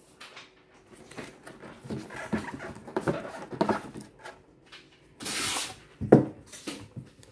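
Cardboard shoe box lid being worked off its base with a run of rubbing and scraping, then a brief rustle and a sharp thump as the lid is set down on the table.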